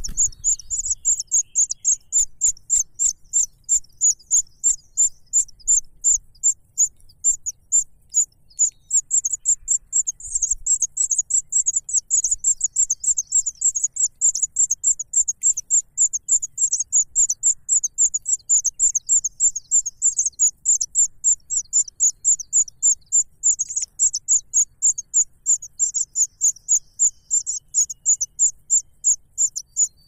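Nestlings begging in the nest: a steady, unbroken run of short, high-pitched chirps, about three a second.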